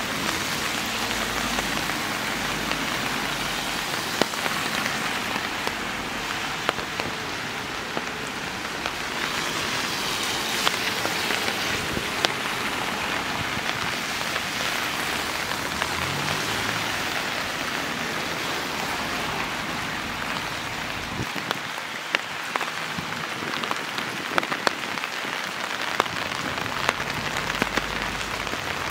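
Steady rain falling as an even hiss, with many scattered sharp drops ticking close by.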